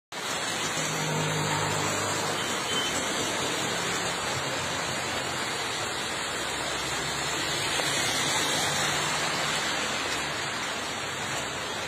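Steady rain falling on a wet road and puddles, a constant even hiss.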